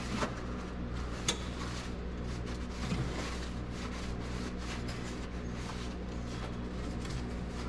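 A few light clicks and rustles from gloved hands working in a pickup's engine bay, over a steady low hum.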